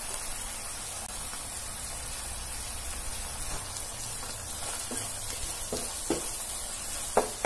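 Chopped onion, capsicum and green chilli sizzling steadily in hot oil in a nonstick wok. A few light knocks come in the second half as a wooden spatula stirs the vegetables.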